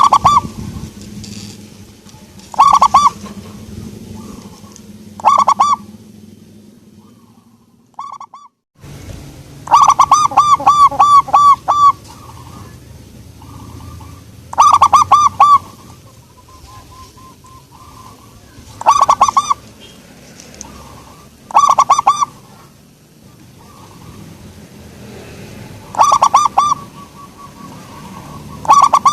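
Zebra dove (perkutut) cooing: bouts of quick, evenly repeated notes every few seconds, with one longer run about ten seconds in.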